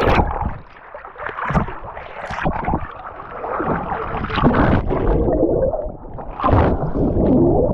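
Boat running over choppy water: water rushing and splashing against the hull with wind buffeting the microphone, swelling and easing in uneven surges.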